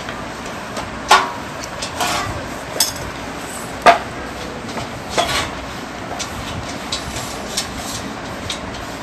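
A brush knocking and scraping on metal baking trays as they are greased: a few sharp irregular clicks and knocks, the loudest about four seconds in, then lighter ticks.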